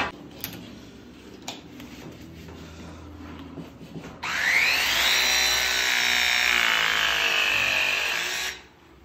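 Battery-powered pipe press tool crimping a press fitting onto a pipe. After a few light handling knocks, its motor starts with a rising whine about four seconds in, runs steadily for about four seconds and cuts off suddenly as the press cycle completes.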